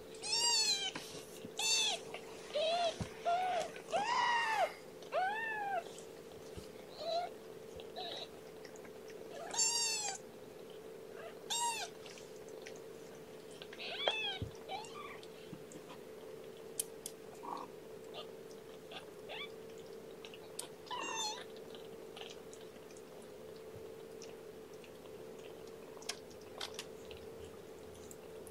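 Young kittens, about two and a half weeks old, mewing: high, rising-and-falling cries come close together for the first dozen seconds, then only now and then. Under them runs a steady faint hum, and small clicks are scattered through the second half.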